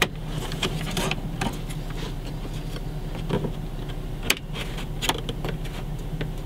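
Plastic radio trim bezel on a Dodge Grand Caravan dash being pried at with a plastic trim tool: scattered sharp plastic clicks and snaps, the loudest right at the start, over a steady low hum.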